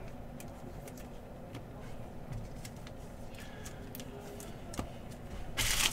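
Trading cards flipped through by hand: faint soft clicks as cards slide off the stack, then a louder rustle of cards near the end.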